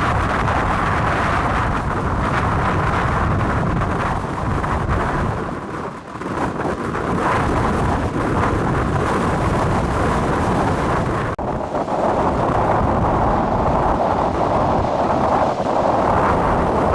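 Storm wind blowing hard across the microphone over rough, breaking sea: a continuous rumbling noise. It eases briefly about six seconds in and changes suddenly, turning brighter, about eleven seconds in.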